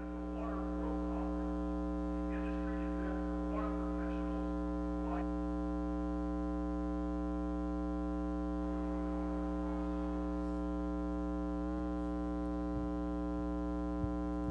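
Steady electrical mains hum, a constant low buzz with many overtones.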